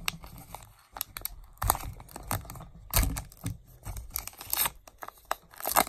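Wrapper of a Topps Heritage baseball card blaster pack being torn open and crinkled by hand, in a series of short rips and rustles.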